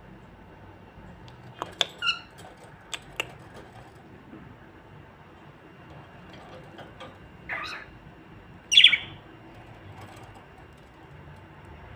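Pet lovebirds giving a few short, separate squawks and chirps, the loudest about nine seconds in, with a couple of sharp clicks around three seconds in.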